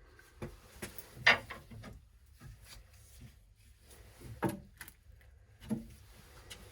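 Scattered short knocks and clunks of tools and parts being handled during work on a gas water heater's regulator. The sharpest comes about a second in, with two more later on.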